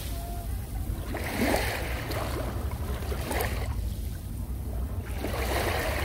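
Small waves washing up a pebble beach. Three hissing surges come about two seconds apart, over a steady low rumble.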